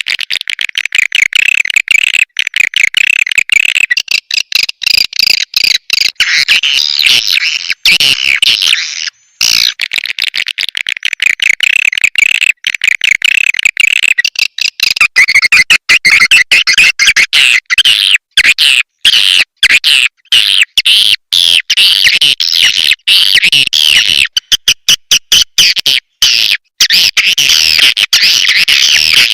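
Swiftlets twittering: a dense, continuous chatter of rapid high chirps, cut by many abrupt short silences. This is a swiftlet call recording, played as a lure to draw the birds into a swiftlet house.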